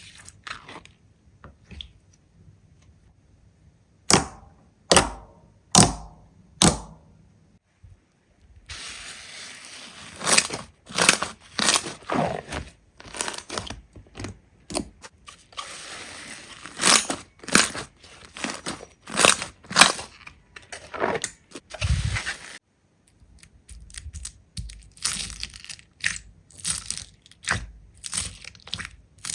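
Slime being squeezed and pressed by hand, giving sharp snapping pops and crackling. There are a few separate loud snaps early on, then a dense run of pops over a crackling hiss, and lighter, quicker clicking near the end.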